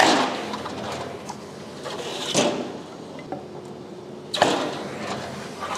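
Marunaka GT Slider super surfacer, a stationary-knife planer with a feed belt, slicing a shaving off a board. Several brief hissing swishes, each fading quickly, over the running feed belt.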